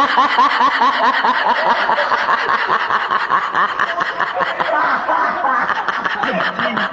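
A person laughing in a long run of quick giggles, which get faster and denser after about four seconds.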